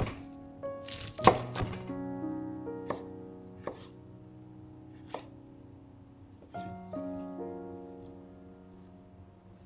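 A knife cutting vegetables on a cutting board: about seven separate sharp strokes at an uneven pace, the loudest about a second and a quarter in, over background piano music.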